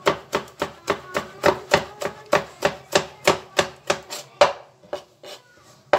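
Kitchen knife chopping fresh coriander finely on a plastic cutting board: quick, even strokes about three a second, with a pause of about a second near the end.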